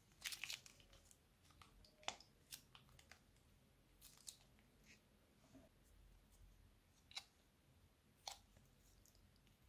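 Scattered soft clicks and crinkles of plastic piping bags being squeezed and handled, then two sharp scissor snips near the end as the tip of a piping bag is cut off.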